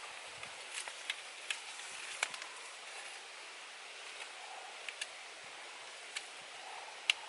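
Scattered sharp clicks and light knocks of bamboo poles being handled and lashed together, the loudest near the end, over a steady outdoor hiss.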